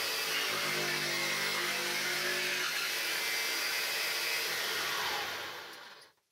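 Table-mounted jigsaw motor running steadily, then switched off and winding down with a falling pitch over the last second or so.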